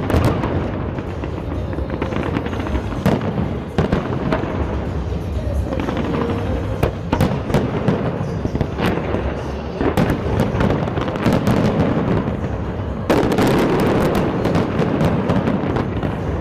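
Large fireworks display: rapid sharp bangs and crackles over heavy, booming low rumbles. It grows to a denser, louder barrage of bursts about thirteen seconds in.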